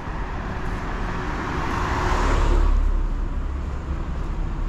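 A car drives past close by, its engine and tyre noise swelling to a peak about two seconds in, then fading away.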